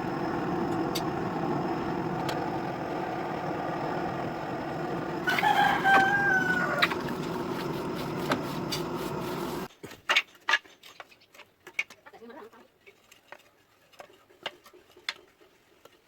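A rooster crows once, about five seconds in, over the steady drone of a running power tool. Just before ten seconds the tool noise cuts off abruptly, leaving scattered light clicks and knocks.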